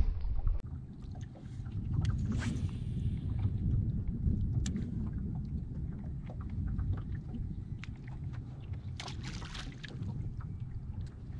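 Steady low rumble of wind and water around a small fishing boat, with a few light clicks and knocks scattered through it, including a cluster about nine seconds in.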